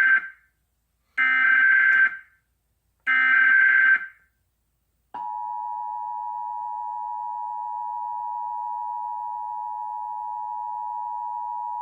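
Emergency Alert System relay: three short bursts of SAME header data, each a harsh digital screech of about a second (the first ends just after the start). About five seconds in, the steady two-tone EAS attention signal (853 and 960 Hz) starts and holds through the end. This is the opening of a National Periodic Test alert.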